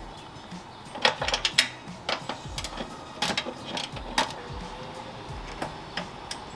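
Ratchet wrench loosening a bolt on an engine-bay bracket: scattered sharp clicks and metallic taps at irregular intervals.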